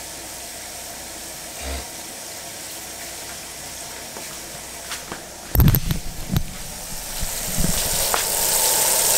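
Fish frying in hot oil in a pan on a propane burner: a steady sizzling hiss that grows louder over the last two seconds. A few thumps and knocks come about halfway through.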